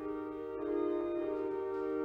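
Church organ playing sustained notes and chords that shift every half second or so.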